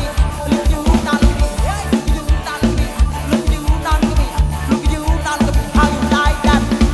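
Live mor lam band music played loud through a sound truck's speakers: an electronic drum kit keeps a fast, steady beat with heavy bass-drum hits under keyboard and melody lines.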